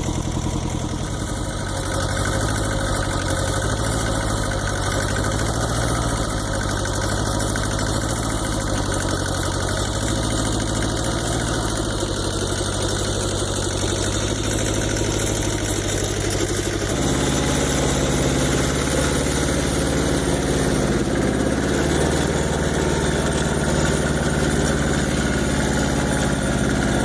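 Farm tractor engine running steadily; about two-thirds of the way through its note steps up abruptly and holds higher.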